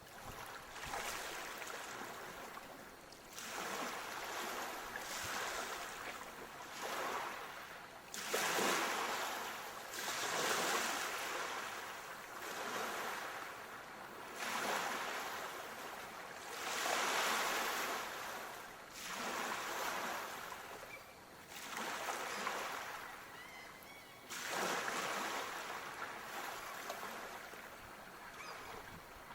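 Small waves breaking and washing in. The hiss of water swells and fades in repeated surges every two to three seconds, some arriving suddenly.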